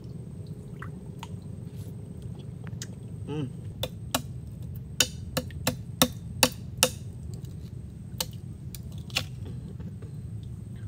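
A machete blade knocking and prying at oyster shells stuck to a mangrove log: a string of about nine sharp clicks, most of them in a quick run a few seconds in, over a steady low rumble.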